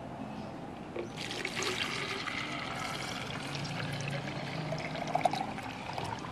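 Water poured from a plastic bottle into a cut-off plastic bottle, a steady splashing pour starting about a second in, just after a light tap.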